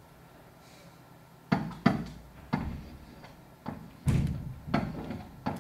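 A series of about seven dull knocks and bumps at uneven intervals, each dying away quickly, the loudest a little after the middle.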